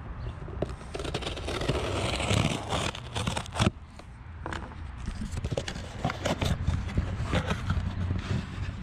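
Cardboard shipping box being opened: packing tape cut and torn, the flaps scraping and rustling as they are pulled back, with a sharp knock about three and a half seconds in and scattered clicks after.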